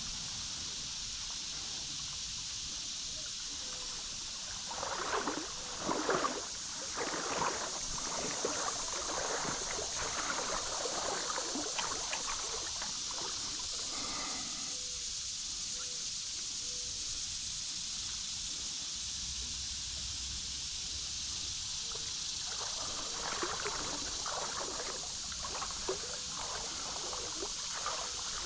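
Creek water running in a steady hiss, with two spells of irregular splashing and sloshing in the water.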